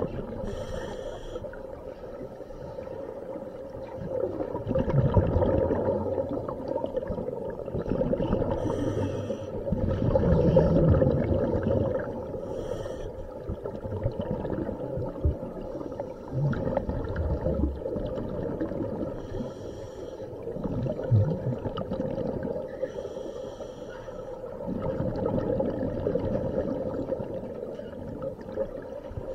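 Scuba divers breathing through regulators, heard underwater: exhaled bubbles rumble in swells every few seconds, with short hissing inhalations through the regulator between them. A steady hum runs underneath.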